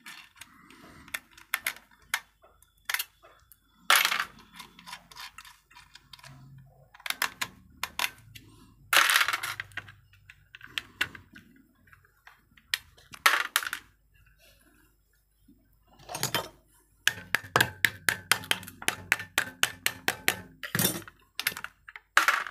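Sharp metallic clinks and ticks as nuts and screws are worked loose by hand from the steel mounting flange of an electric geyser's heating element. They come irregularly, with a fast run of clicks in the last few seconds.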